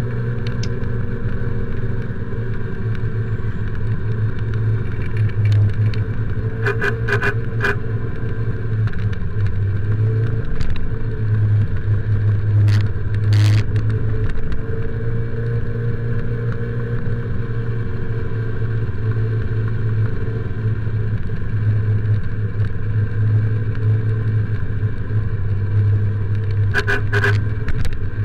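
Motorcycle engine running under way, its pitch rising and falling with the throttle, with wind noise on the helmet or action camera. Short repeated horn beeps come around seven seconds in and again near the end, honking to clear traffic ahead of an ambulance.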